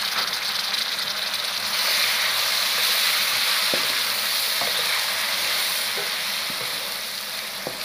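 Chopped tomatoes and green chilies sizzling loudly in hot oil with browned onions in an aluminium pot, a steady hiss as their moisture hits the oil. A few light knocks of a wooden spatula stirring the pan.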